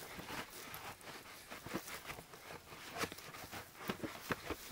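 Birch bark being pried loose from a fallen birch log with a flat tool worked underneath it: irregular small cracks, creaks and scrapes, a few a second.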